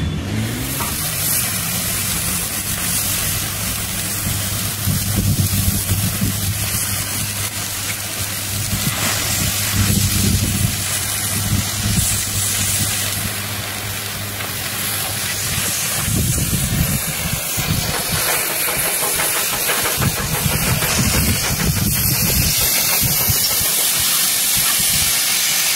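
Oxy-fuel gas cutting torch hissing steadily as it cuts thick steel plate. A steady low hum sits under the hiss and stops about two-thirds of the way through.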